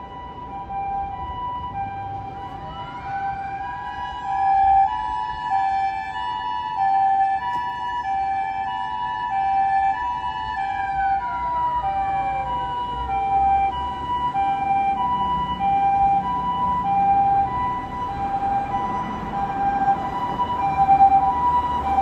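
A Japanese ambulance's two-tone hi-lo siren ("pee-po") sounds continuously, a high and a low steady tone alternating about every two-thirds of a second. From about three seconds in a second siren rises, holds a high tone, and glides down and away around thirteen seconds in.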